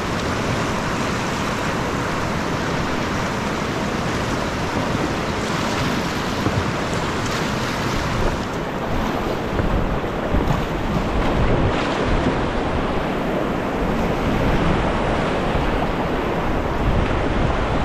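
Whitewater rapids rushing loudly around a kayak running the current, with a few sharper splashes in the middle and wind buffeting the microphone.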